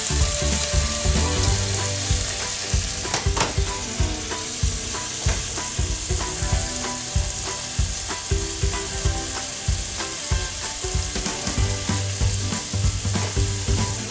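Chicken thighs sizzling in hot oil in a pan as they brown, a steady hiss with frequent small crackles and pops of spattering fat.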